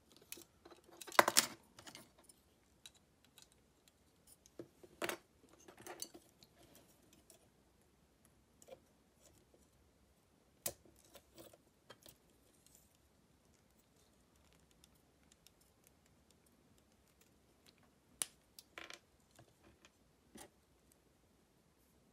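Hard plastic parts of an HGUC 1/144 Unicorn Gundam model kit clicking and rattling as they are handled and fitted together. The clicks come in scattered clusters, loudest about a second in, with a quiet stretch in the second half.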